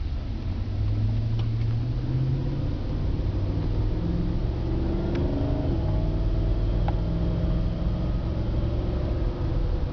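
Cabin sound of a 2007 Cadillac Escalade's V8 engine and tyres while driving, with the engine note shifting in pitch about halfway through as it accelerates. A few faint clicks are heard.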